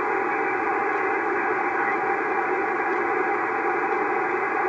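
Steady static hiss from the speaker of a homemade vacuum-tube 40-meter shortwave receiver as it is retuned. The receiver's plate voltage has just been dropped to 12 volts, which has shifted the 12BE6 oscillator off frequency.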